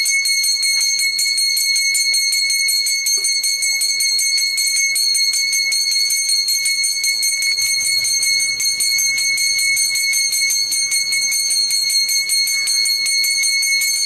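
Brass Hindu puja hand bell rung rapidly and without pause during an arati: a steady high ringing made of many quick strokes a second.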